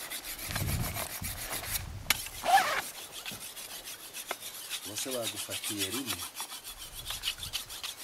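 Rapid, even scraping of something being rubbed hard against a stone, stroke after stroke.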